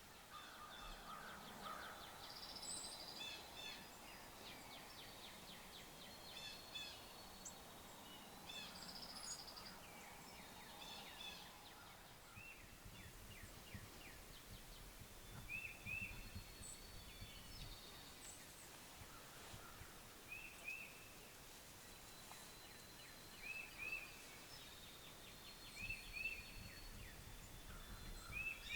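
Wild songbirds chirping and trilling in quiet open country, with a doubled high note repeating every few seconds in the second half. Faint low wind noise underneath.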